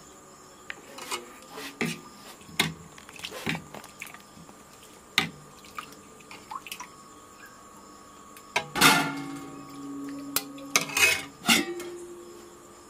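Metal serving spoon clinking and scraping against a steel kadai and a brass plate as gravy is ladled out: a run of light clinks, then two louder clangs about nine and eleven seconds in, each ringing on briefly.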